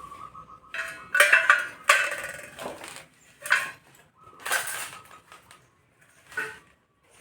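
Metal objects clinking and clattering in about five separate bursts, each with a short ring.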